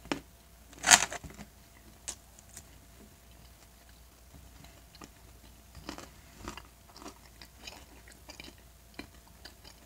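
A person chewing teriyaki beef close to the microphone: soft wet mouth clicks and smacks, scattered and irregular. One loud, sharp sound comes about a second in.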